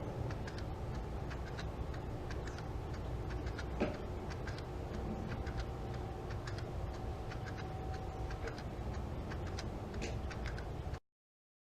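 Mini travel analog alarm clock ticking: faint clicks over a steady low background hiss, with one louder knock about four seconds in. The sound cuts off abruptly near the end.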